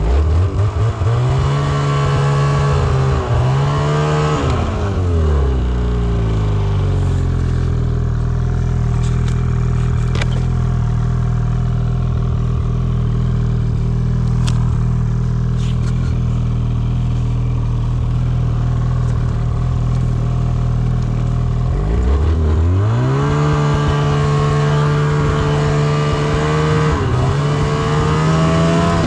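Ski-Doo snowmobile's Rotax engine pulling away and holding speed. It drops to a steady idle for a long stretch, then speeds up again about three-quarters of the way through.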